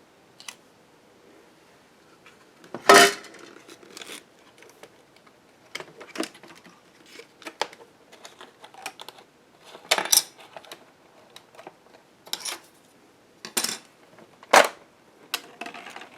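Scattered clicks and light knocks of small plastic computer parts being handled and set down: the Epson HX-20's plastic screen cover and LCD being taken out and repositioned. Sharp, uneven taps, the loudest about three seconds in and another near the end.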